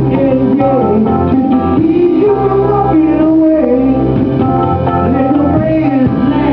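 Live band music: a singer's voice over guitar and steady low notes.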